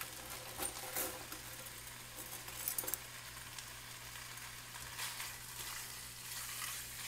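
Sliced deli meat sizzling steadily in hot vegetable oil in a frying pan, with a few light clicks.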